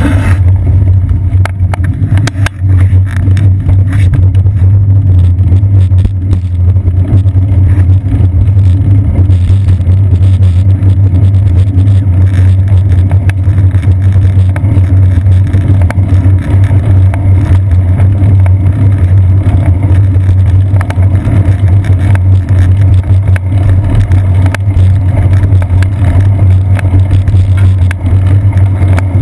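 Steady low rumble of wind buffeting and road vibration on a seat-post-mounted action camera on a moving bicycle, with a few knocks from bumps in the path in the first few seconds.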